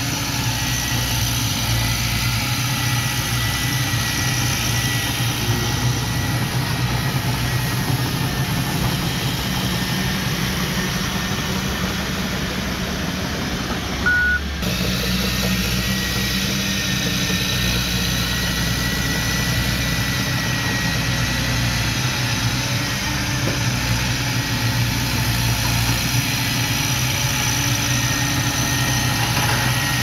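Komatsu D31P crawler bulldozer's diesel engine running steadily as the dozer pushes soil. About halfway through there is a brief high beep and a short dropout.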